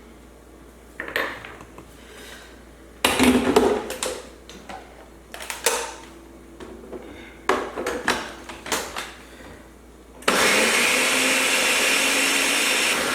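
A series of irregular knocks and clatter, then, about ten seconds in, an electric blender switches on and runs steadily and loudly, blending watermelon chunks with mint leaves and lime and no added water.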